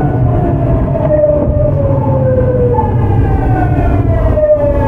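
Tokyu 9000 series train's early Hitachi GTO-VVVF inverter whining in repeated falling tones, each glide dropping and then jumping back up to a higher pitch, over a steady low rumble of wheels on the track. The falling inverter pitch is the sign of the train slowing under braking.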